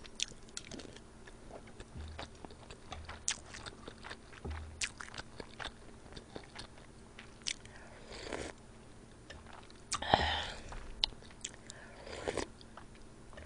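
Close-miked chewing and eating sounds of a person eating fried rice by the spoonful: soft mouth clicks and chewing, with a few louder wet mouth noises in the second half.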